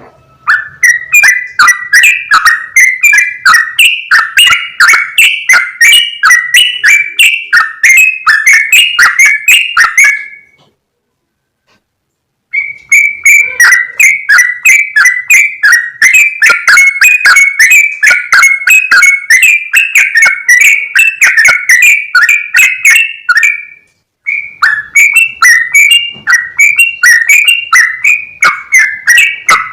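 Bulbul calls repeated rapidly, about two notes a second, in three long runs broken by short gaps. The recording is very loud and overloaded, so the notes sound harsh and distorted.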